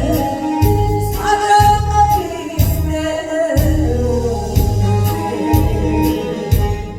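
A person singing a song over amplified backing music with a steady beat.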